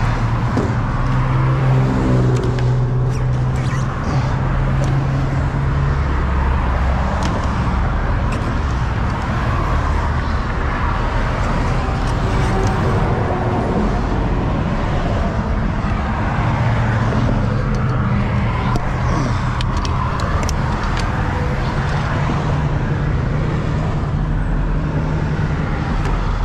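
A heavy truck engine idling steadily with a low hum, with road traffic in the background and a few sharp clicks and knocks.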